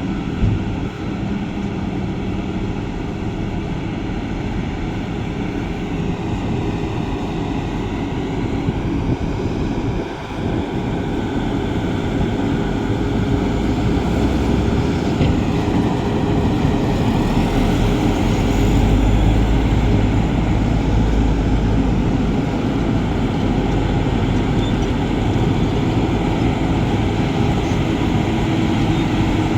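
Diesel engines of heavy construction machinery running steadily under load, a continuous low-heavy noise that gets louder from about halfway through.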